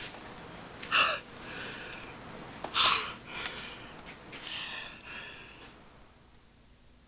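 A man sniffing and breathing hard in a series of short, airy bursts, the two loudest sniffs about one and three seconds in, dying away near the end.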